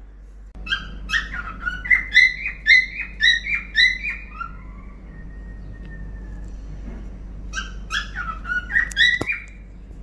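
Cockatiel singing: quick whistled chirps, about three a second, in two phrases with a pause between them. A single sharp click near the end.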